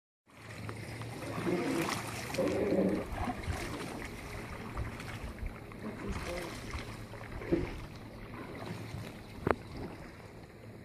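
Kayak out on the water: a steady wash of water and wind noise, muffled voices in the first few seconds, and a couple of sharp knocks later on.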